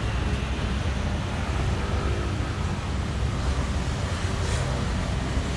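Steady low-pitched outdoor rumble with no distinct events.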